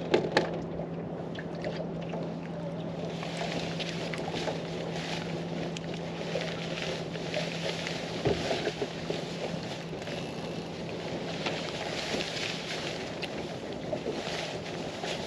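Wind and choppy lake water around a small aluminium fishing boat, with a steady low hum that stops about eight seconds in.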